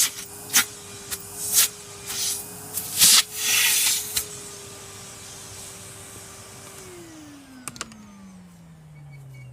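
Numatic NRV180 vacuum cleaner running with a steady motor whine, sucking debris out of a barbecue in loud rattling, hissing bursts through the hose for the first few seconds. About seven seconds in, the motor is switched off and its whine falls steadily in pitch as it spins down, with a couple of light clicks.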